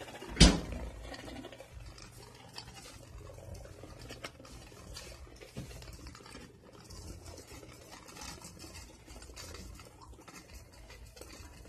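Cho-Z Valkyrie Beyblade spinning in a plastic stadium, its tip running on the stadium floor with a steady low whirr and faint scratching. There is a single sharp knock about half a second in.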